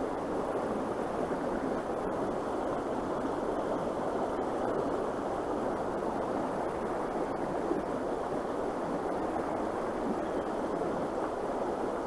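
Steady rushing of a shallow creek flowing over a rocky bottom, an even watery hiss without breaks.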